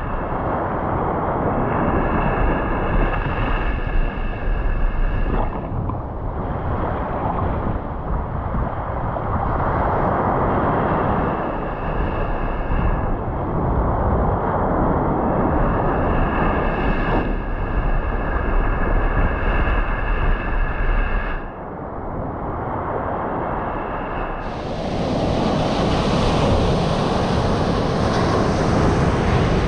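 Surf breaking and washing on a beach with wind buffeting the microphone, and a steady high whine that comes and goes through the first twenty seconds. Near the end the wash of the waves turns brighter and hissier.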